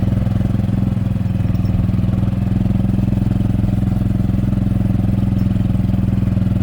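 Vehicle engine running at a steady speed while driving, a loud even drone with no revving.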